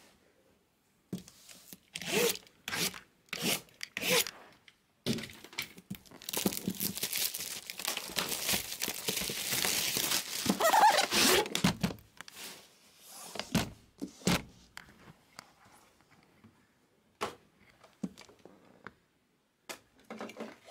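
Packaging of a box of Panini Flawless trading cards being handled and opened on a table: a run of knocks and taps, then several seconds of plastic being torn and crinkled, then scattered knocks.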